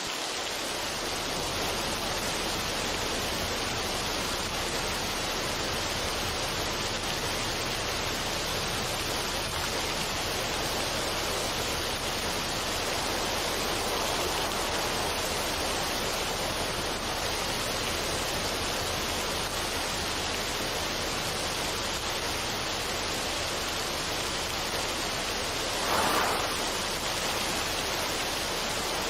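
Steady, even rushing noise with no tones or rhythm, like falling water or a noise generator, swelling briefly about 26 seconds in.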